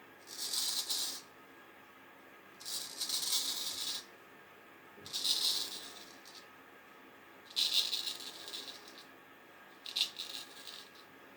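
Freshly honed vintage straight razor shaving whiskers: five short scraping strokes, each about a second long and roughly two and a half seconds apart. The crisp rasp is the blade cutting stubble, a test that it is shave ready.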